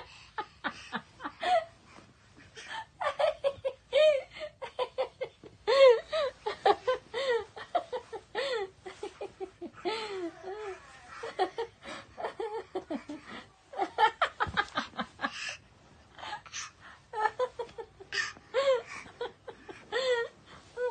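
Laughter: runs of short giggles and chuckles coming in bursts with brief pauses between them.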